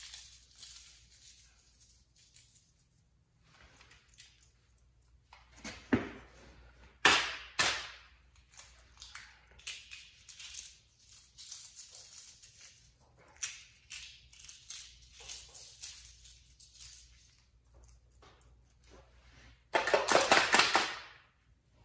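Raw eggs crushed by hand, the shells cracking and crackling over bowls of dry dog kibble, in short scattered bursts with pauses between. A few sharper cracks and a dull thump come around six to seven seconds in, and a longer loud crackle near the end.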